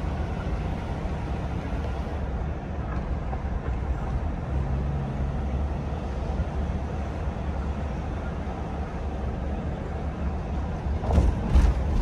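Car driving slowly, heard from inside the cabin: a steady low rumble of engine and tyre noise, with a few short thumps or bumps near the end.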